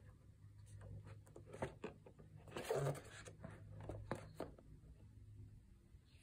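Paper rulebook pages being handled and turned: small crackles and rustles, with one louder page-turn swish about three seconds in.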